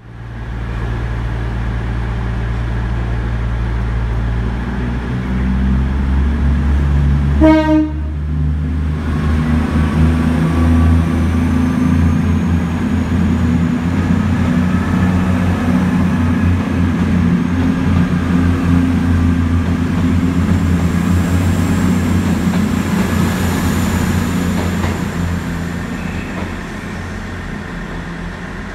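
Diesel train engine running loudly, with one short toot of the horn about seven and a half seconds in. The engine note builds up after the horn, then eases off near the end.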